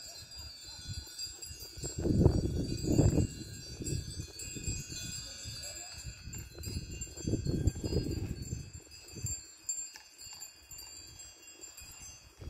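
Wind chimes ringing, several high thin tones held throughout, with two louder low rumbles about two and seven seconds in.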